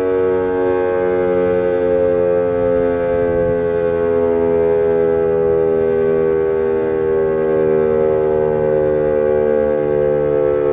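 Fedelcode Model 5 eight-port outdoor warning siren sounding a steady alert tone at close range, loud, held at nearly one pitch with only slight wavering.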